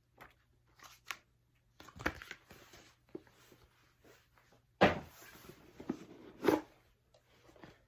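Handling of a cardboard trading-card box and its paper contents: scattered knocks, taps and rustles, the loudest about two seconds in and again near five and six and a half seconds in.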